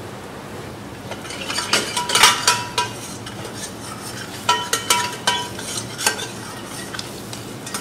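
Metal ladle scraping and clinking against a stainless steel saucepan while stirring onions and spices frying in oil, in two bursts of sharp ringing clinks, about a second and a half in and again about four and a half seconds in.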